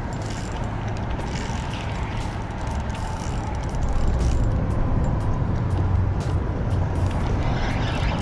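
Steady rumble of road traffic on the bridge, a little louder from about four seconds in, with faint scattered ticks over it.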